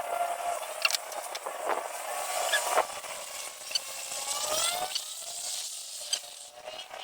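Blender's universal motor running on a rewound stator coil, its pitch rising and falling as the speed changes, with a few sharp clicks.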